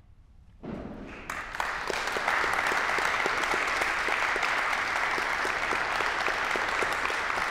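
Audience applauding: a brief hush, then clapping begins just under a second in, swells quickly and holds steady.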